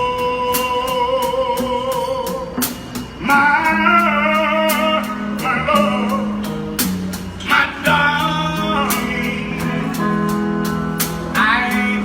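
A singer holds one long, steady note for nearly three seconds, then sings wordless vocal runs that bend up and down, over guitar accompaniment and a steady beat.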